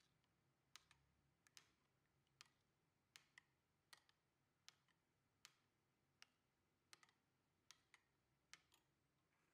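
Faint, regular clicks of a metal spoon striking the side of a ceramic bowl while stirring a thick marinade, about one click every three-quarters of a second, some of them doubled.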